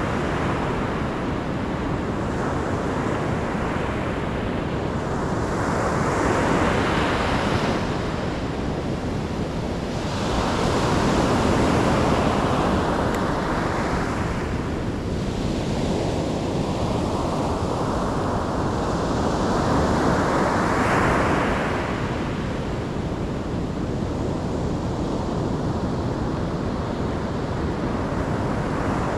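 Ocean waves breaking and washing in, a steady rush of surf that swells with a wave about every few seconds, loudest near 7, 11 and 21 seconds in, with wind rumbling on the microphone underneath.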